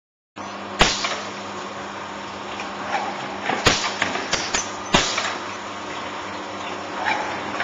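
Multinova 1600 gluer for crash-lock-bottom corrugated boxes running: a steady mechanical noise with a constant hum, starting abruptly about half a second in, broken by sharp knocks, three of them loud.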